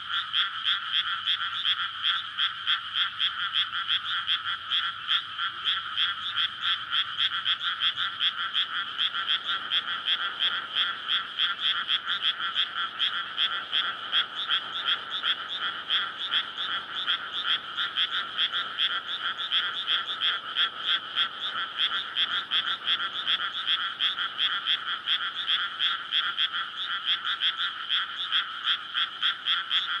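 Dense breeding chorus of many frogs calling in a flooded rice paddy, their overlapping calls merging into a continuous rapid pulsing with a shrill upper pitch over a lower one. It is the males' mating calls, which start once the paddy is flooded.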